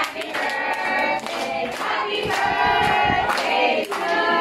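A small group of children singing a song together while clapping their hands.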